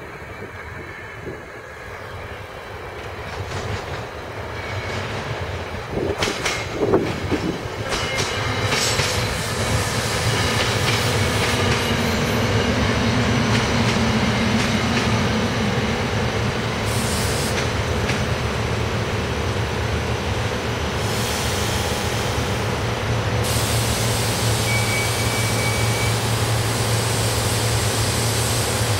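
SEPTA Silverliner IV electric multiple-unit commuter train approaching and passing close by. It grows louder over the first ten seconds, with a few sharp wheel clacks over rail joints or switches about six to seven seconds in, then runs on as a steady rumble of wheels on rail as the cars go past.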